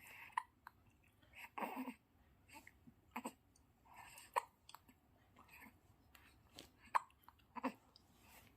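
A newborn baby hiccuping: short, sharp hiccups every second or two, with soft breaths and small throaty noises between them.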